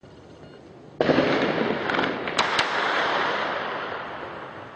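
A burst of heavy gunfire starts suddenly about a second in, crackling densely for about two seconds with a couple of sharper cracks, then echoing off buildings and dying away.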